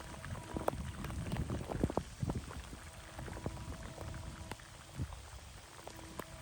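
Rain falling, with drops splashing close to the microphone as irregular sharp ticks and splats over a steady hiss.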